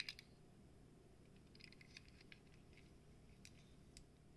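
Near silence with a few faint clicks of fingers handling a small diecast toy fire truck: a short cluster at the start, a few light ticks about two seconds in, and two single clicks near the end.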